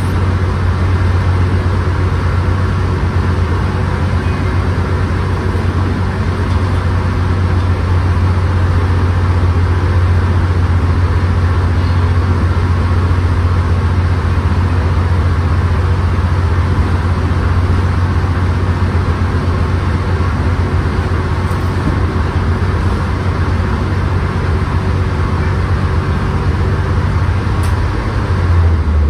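Volvo D10A-285 diesel engine of a Volvo Super Olympian double-decker bus running steadily as the bus drives along, heard from inside the bus over road noise. Its drone drops in pitch near the end.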